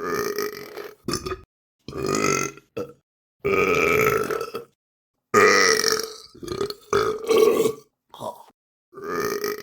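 A person burping over and over: about ten separate burps, some short and clipped, some drawn out for about a second with a wavering pitch, with dead silence between them.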